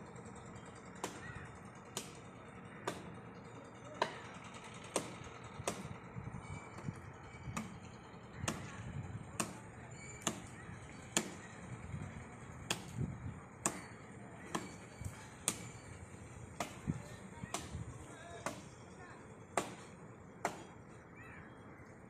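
Chopping strokes of a blade into the wood of a standing tree as it is cut from above, a sharp knock about once a second.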